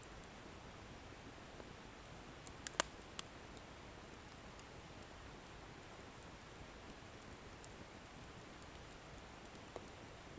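Wood bonfire burning quietly, with faint steady noise and a few sharp crackles of the firewood: a quick cluster of three or four between two and a half and three seconds in, and one more near the end.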